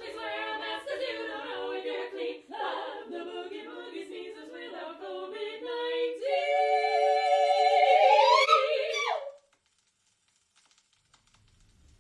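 Three women singing a cappella in close harmony, ending on a long held chord from about six seconds in that grows louder and slides upward before cutting off suddenly.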